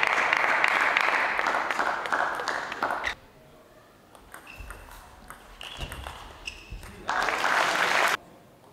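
Audience applause in a sports hall, cutting off abruptly about three seconds in. A quieter stretch follows with a few short high squeaks and soft thuds. A second, shorter burst of applause comes about seven seconds in and ends suddenly a second later.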